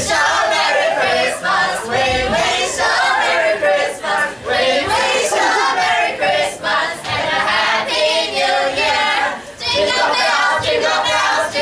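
A small group of young voices singing together.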